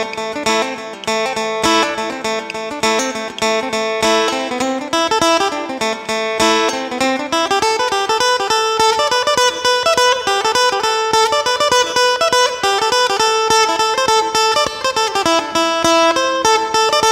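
Solo phin, the northeastern Thai plucked lute, picked rapidly with a plectrum in the lam phloen style: a fast running melody over a steady drone note.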